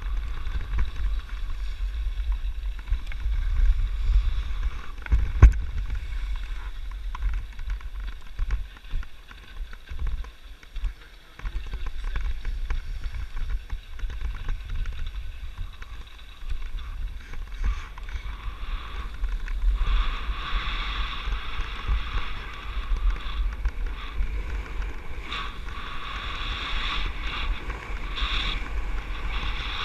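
Wind buffeting the camera microphone as a low rumble while skiing downhill, with the hiss of skis scraping over packed snow that grows louder about two-thirds of the way through. One sharp knock about five seconds in.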